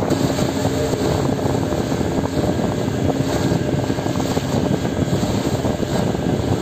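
Passenger boat's engine running steadily at cruising speed, a loud even drone, with water splashing along the hull.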